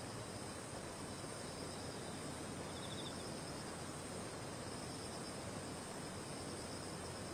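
Faint, steady chirring of crickets in a night-time ambience, with a constant background hiss.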